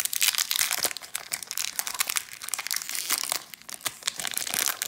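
Foil wrapper of a 1992 Stadium Club baseball card pack being torn open and crumpled by hand: a dense crinkling full of sharp crackles.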